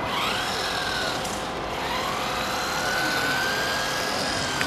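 Electric motor of a WLtoys A959 1/18 4WD RC buggy whining as it drives, the pitch rising and falling with the throttle, over the noise of the drivetrain and tyres.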